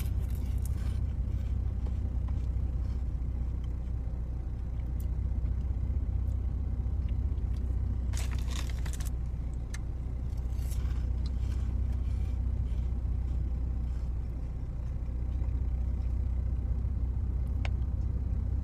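Steady low rumble of a car idling, heard from inside the cabin, with a few short noises about eight to eleven seconds in.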